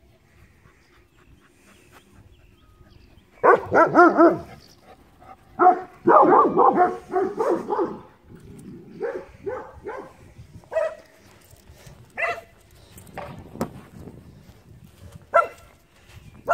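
Dog barking in play: a quick cluster of barks about three and a half seconds in, a longer run of barks from about six to eight seconds, then scattered single barks.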